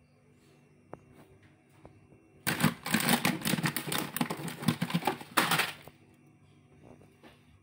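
Dense crinkly rustling, about three seconds long, as a bunch of leafy greens is handled and pulled out of a fridge, with a few light clicks of things being moved before and after.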